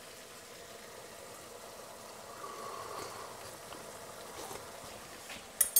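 Tomato sauce simmering quietly in a frying pan on a gas hob: a faint, steady bubbling. A single sharp click comes near the end.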